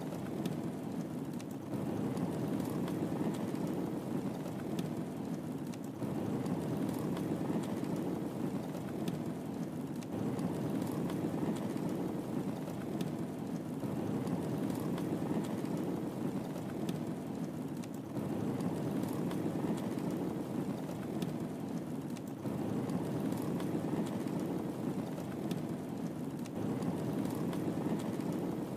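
Wood fire burning in a fireplace: a steady low rumble of flames with scattered small sharp crackles and pops.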